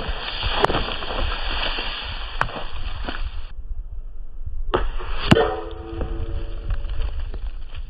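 .22 air rifle pellets striking targets: sharp cracks and a hissing spray as a soda can and then a paint can burst. About five seconds in, the sharpest hit is followed by a brief metallic ring.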